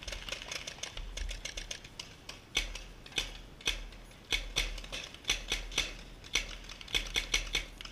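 Paintball markers firing on the field: sharp pops, sometimes single and sometimes in quick strings of three to five, from several players shooting.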